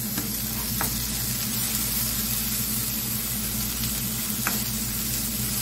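Chopped onions and freshly added ginger-garlic paste sizzling steadily in hot oil in a non-stick pan, stirred with a spatula that gives a few light scrapes and taps.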